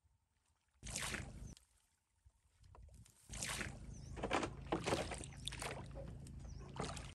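Water splashing and sloshing as a bamboo raft is poled through the shallows to the shore: a short burst about a second in, then a longer stretch of splashing from about three seconds in that cuts off suddenly at the end.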